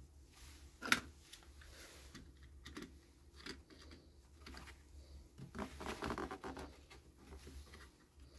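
Hand-handling noise of MDF panels and a clock movement on plastic sheeting: a sharp knock about a second in, then scattered light clicks and scraping as the clock movement is pressed into the round hole in the board, with a denser stretch of scraping and rustling around six seconds in.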